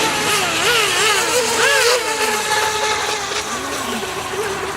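Radio-controlled boat motors whining, their pitch swinging up and down several times a second as the throttles are worked, with more than one boat running at once. From about two seconds in, one motor holds a steady pitch while another sweeps down and back up.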